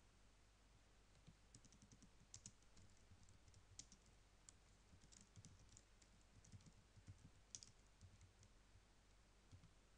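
Faint, irregular computer keyboard keystrokes as a line of text is typed, starting about a second in.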